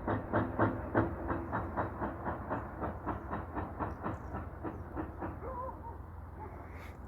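Train wheels clicking over rail joints in an even rhythm of about four to five clicks a second, fading away as the train moves off. A few short bird chirps come in near the end.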